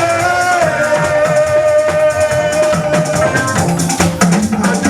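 Live Yoruba church praise music: shaker, drums and guitar keep a steady beat under one long held note that lasts about three seconds, after which lower notes move near the end.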